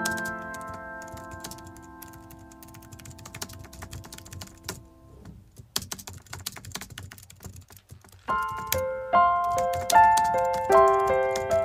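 Computer keyboard typing in quick runs of clicks, over background music. The music fades out over the first few seconds and comes back about eight seconds in.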